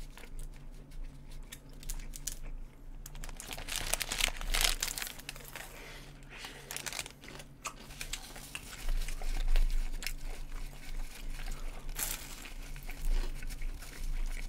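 Paper food wrappers crinkling and rustling as a burger and an apple pie in its cardboard sleeve are handled, with scattered crunchy bites into the pie's crisp pastry crust.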